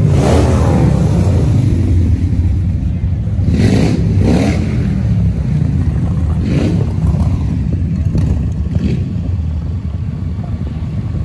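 Motorcycle engine running steadily at low road speed, heard from on the bike itself, with a few brief whooshes of wind noise on the microphone.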